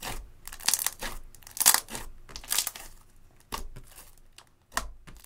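Clear slime with eyeshadow mixed in, squeezed and kneaded by hand, giving crackling squishes about once a second. The crackles are loudest in the first three seconds and come more sparsely after that.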